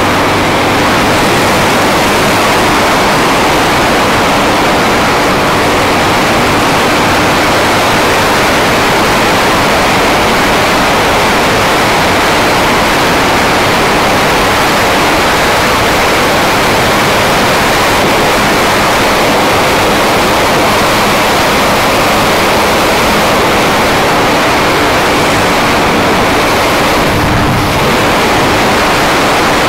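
Loud wind rushing over the camera microphone of a motorcycle riding at speed, with the Honda CBR250R's single-cylinder engine running at a steady pitch underneath; the engine hum comes through more clearly near the end.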